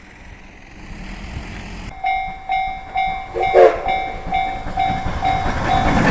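Railway level-crossing alarm starts about two seconds in, a steady ding repeating about twice a second, while the rumble of an approaching train grows louder. A brief sharper sound cuts across the bell about halfway through.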